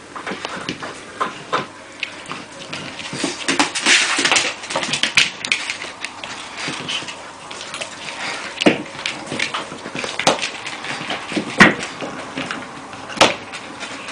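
An American Staffordshire Terrier puppy pushing and gnawing a large chew bone on the floor: irregular scraping and clicking, with three sharp knocks in the second half.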